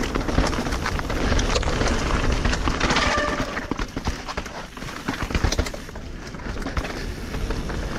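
Canyon Spectral AL 5.0 full-suspension mountain bike riding fast down a wet, muddy forest trail: tyres rolling through mud and wet leaves, and the bike rattling and knocking over roots and bumps. Heavy wind rumble on the helmet-camera mic runs underneath, and a short squeal comes about three seconds in.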